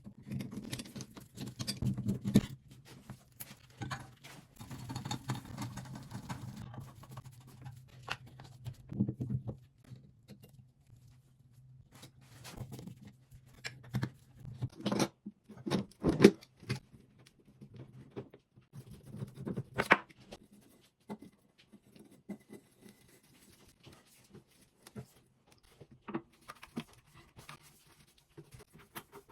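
Hand work on a shower valve installation: scattered clicks, taps, knocks and scraping of tools and fittings, with a few louder knocks about halfway through. A low steady hum runs under the first third.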